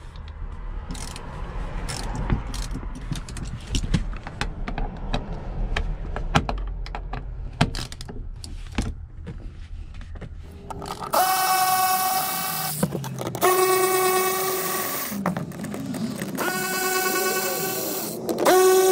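Hand ratchet clicking and scraping on the seat's T40 floor bolts, then a cordless electric ratchet whining in three bursts of about two seconds each, spinning the bolts out, with another burst starting at the very end.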